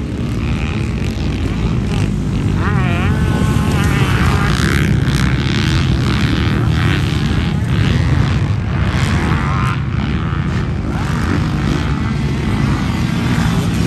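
Several dirt bike engines on a motocross track, revving up and down as riders accelerate over jumps, their pitch rising and falling in waves.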